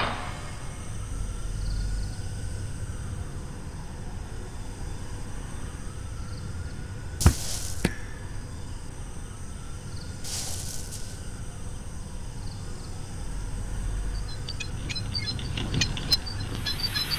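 Two quick whooshes of a pole swung through the air, the first with a sharp knock, about seven and ten seconds in, over a quiet, steady background. Faint tiny pips come near the end.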